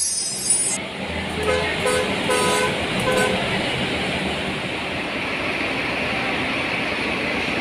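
Bus terminal ambience: a steady wash of traffic noise over a low idling engine hum, with a quick series of short vehicle horn toots about one and a half to three seconds in.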